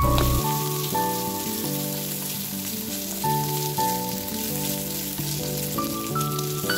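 Small pieces of food sizzling as they fry in hot oil in a nonstick pan, with a steady crackling hiss, while chopsticks turn them. Background music plays under it.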